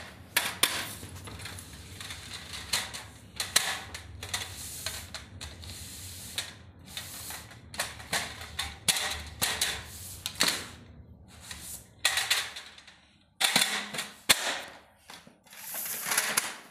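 Aluminium folding camping table being handled: the slatted tabletop and the aluminium frame poles clatter and click, with irregular sharp knocks of metal on metal and rattling of the slats.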